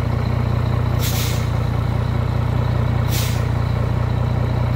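Scania semi-truck's diesel engine running steadily with a deep drone as it works to pull a loaded trailer out of mud, with two short sharp air hisses, about a second in and about three seconds in.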